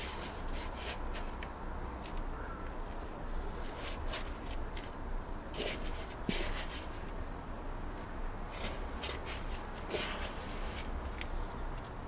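A hand digging and rummaging through loose potting soil for potato tubers: irregular short, crunchy rustles and scrapes of soil being pushed aside.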